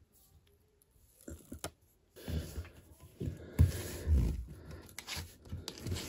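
Adhesive backing paper being peeled off an abrasive anti-slip grip pad, a crackly tearing and rustling sound, then handling noise with two dull knocks midway as the pad is fitted under a washing machine foot on a tile floor.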